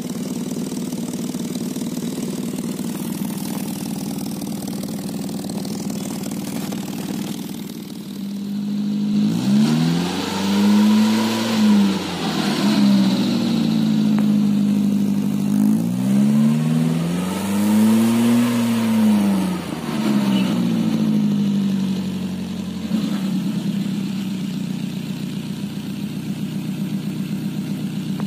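Suzuki Carry Futura van's four-cylinder engine idling through a newly fitted plain-type Savinta exhaust resonator. It is revved twice, about nine seconds in and again about sixteen seconds in, each rev rising and falling back to idle. This is the resonator's sound, which the owner calls fuller and mellower ("lebih maksimal dan lebih adem").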